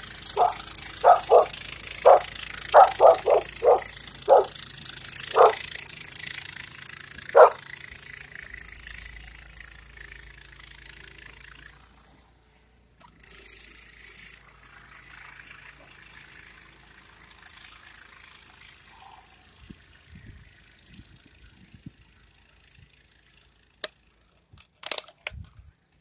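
Dog barking: a quick run of about ten short barks over the first seven or eight seconds, then it stops. A steady hiss runs underneath, and a few sharp knocks come near the end.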